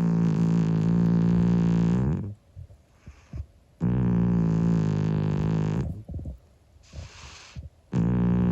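Old calico cat snoring in her sleep: three long, droning snores about four seconds apart, each lasting about two seconds, with quiet pauses between breaths.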